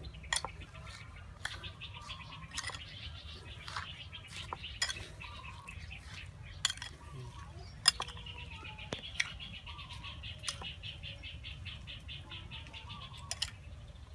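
Metal spoon clinking and scraping against a ceramic bowl as shredded green mango salad is tossed, with a sharp clink every second or so and the loudest about 8 s in. A rapid, evenly pulsed high chirping trill runs behind it in two long stretches.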